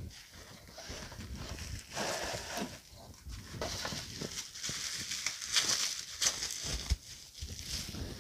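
Clear plastic packing wrap crinkling and rustling as a candle is pulled from its cardboard box and unwrapped, with a few soft knocks of cardboard against the table.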